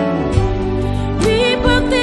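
A woman singing a song over instrumental backing with a steady bass line. A new sung phrase, with vibrato on its held notes, starts about a second in.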